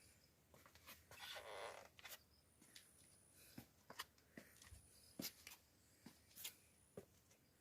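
Near silence, with a few faint scattered clicks and a brief soft rustle about a second in.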